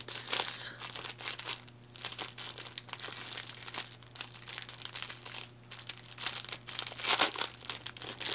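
Clear plastic packaging bag crinkling and crackling as hands work it open, with the loudest rustles right at the start and again about seven seconds in.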